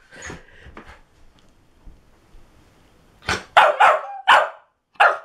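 A dog barking: five loud barks in quick succession, starting about three seconds in.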